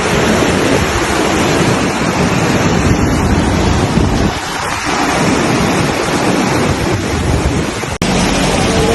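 Loud, steady rushing of water, with wind buffeting the microphone. The sound breaks off for an instant about eight seconds in, then carries on.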